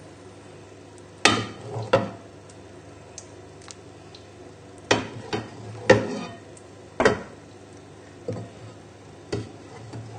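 Soup being ladled from a saucepan into a ceramic bowl: a metal ladle knocks against the pan and the bowl rim about nine times, each knock ringing briefly, over a faint steady hum.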